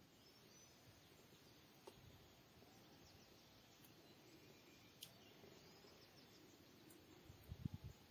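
Near silence: faint outdoor background with a few faint distant bird chirps, and a short cluster of low thumps near the end.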